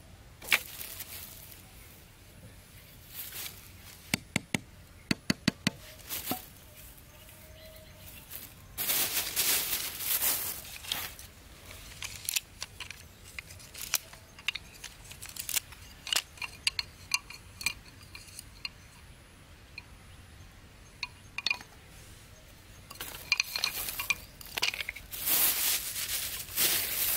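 Cut bamboo sticks clicking and knocking against each other as they are handled, with a quick run of sharp clicks about four seconds in. Bursts of rustling and scraping come in between and near the end.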